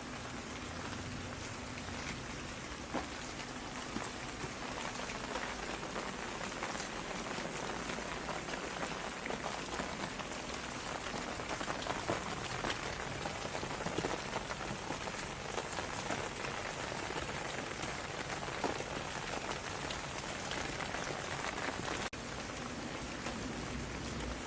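Steady rain falling, with a dense patter of individual drops striking surfaces.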